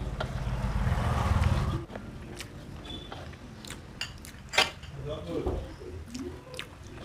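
Fingers working rice against a metal plate, with small scrapes and sharp clicks, then a handful of rice eaten and chewed with wet mouth sounds near the end. A low rumble runs through the first two seconds.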